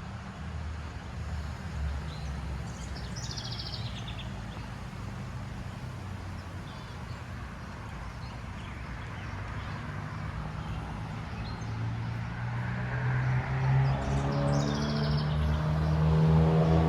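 Low traffic rumble, with a motor vehicle approaching and getting louder over the last few seconds, its engine tone rising. A bird gives a short, rapid chirping trill twice, once about three seconds in and once near the end.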